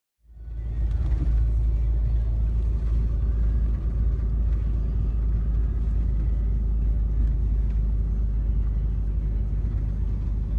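Steady low rumble of a truck driving, heard from inside the cab. It starts suddenly a moment in.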